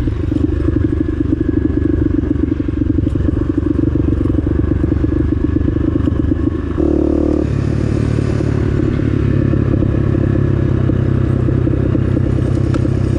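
Small Honda dual-sport motorcycle engine running steadily under way, with a brief change in the engine note about seven seconds in.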